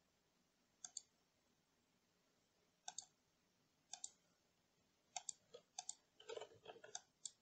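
Faint computer mouse clicks, each a quick press-and-release pair, coming about once a second. A short run of quicker computer keyboard keystrokes follows a little after six seconds in.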